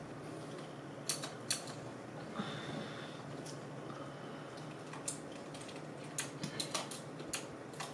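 Quiet room with a steady low hum and a few scattered faint clicks, a pair about a second in and a loose cluster in the second half.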